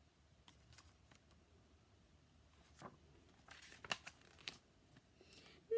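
Faint paper rustling and a few soft clicks of a picture book's pages being handled and turned, between about three and four and a half seconds in; otherwise near silence.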